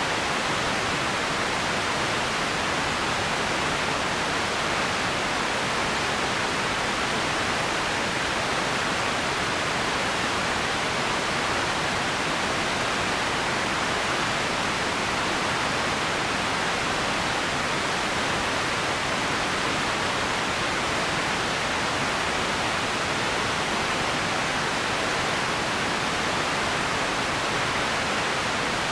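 Steady, unchanging hiss of empty ambience noise with no distinct events, strongest in the middle range and thinner in the deep bass and top treble.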